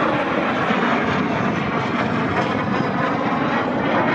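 Canadair CT-133 Shooting Star jet trainer, its Rolls-Royce Nene turbojet giving a loud, steady jet noise.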